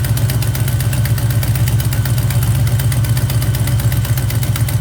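1976 Plymouth Gran Fury wagon's V8 engine idling steadily, warmed up and firing evenly on all eight cylinders.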